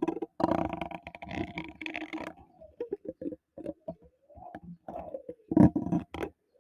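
Fingers scratching and rubbing on a microphone close up, in irregular bursts separated by short pauses, with a run of quick strokes in the middle and a louder burst near the end.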